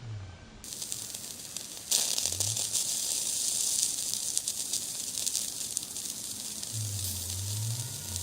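A steady hiss with crackling sets in and turns much louder about two seconds in, with faint low sliding tones underneath near the end.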